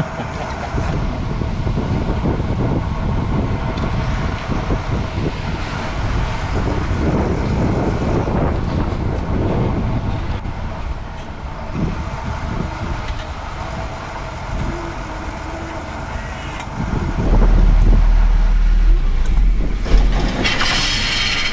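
Radio-controlled Tamiya King Hauler truck driving over dirt with a loaded trailer, its motor and drivetrain running with a steady whir. A loud low rumble on the microphone comes in about three-quarters of the way through.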